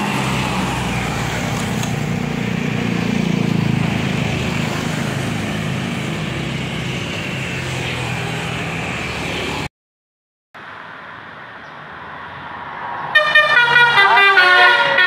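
A bus's diesel engine runs steadily, swelling a little and easing off, then cuts out for about a second. Near the end a basuri 'telolet' musical horn starts up loudly, playing a quick tune of several notes sounding together and stepping in pitch.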